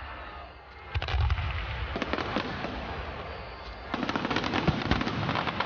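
Aerial fireworks shells bursting, with a deep boom about a second in and scattered crackling pops, turning into denser booms and crackling from about four seconds in.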